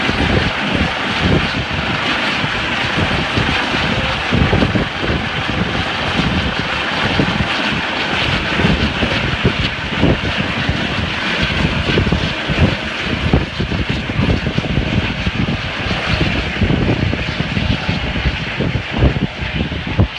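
US Coast Guard helicopter flying off, a loud steady engine and rotor noise with irregular low thumps throughout.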